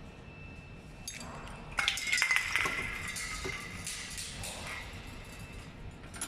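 Metal tools and parts clinking: one clink about a second in, then a quick cluster of sharp metallic clinks with a brief ringing tone, followed by a few fainter taps.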